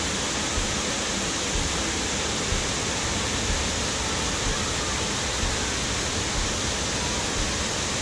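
A 25-foot waterfall roaring in full flow after weeks of rain: a steady, even rush of falling water.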